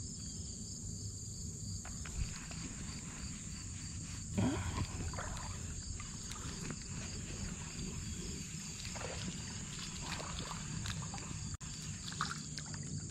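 Steady high-pitched chorus of crickets, with scattered knocks and rustles of a spinning rod and reel being cast and worked, the largest about four seconds in.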